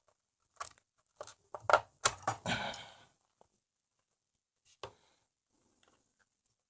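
Hands handling the receiver's lamp wiring: a quick run of small clicks and rustles, then a single sharp click just before five seconds, while a loose connection is being checked.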